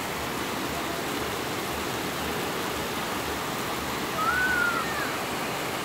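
Rain falling steadily, an even hiss with no break. A short rising-and-falling whistled call sounds over it about four seconds in.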